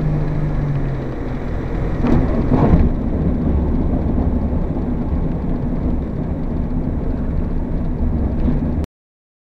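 Jabiru light aircraft rolling along the runway after landing: its engine at low power under a steady rumble of wind and wheels. The noise swells briefly about two seconds in and cuts off abruptly near the end.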